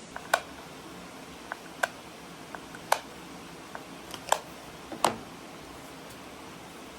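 Irregular sharp clicks and knocks of small hard parts being handled and pressed together during gluing. There are about nine over five seconds, with a steady low hiss underneath.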